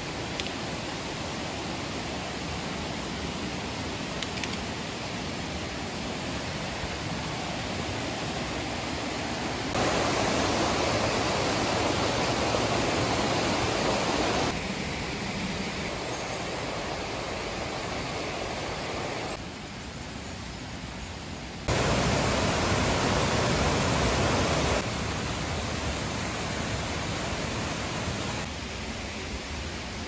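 Mountain stream rushing over rocks: a steady rush of water that abruptly gets louder or quieter several times, louder from about ten seconds in and again just past twenty.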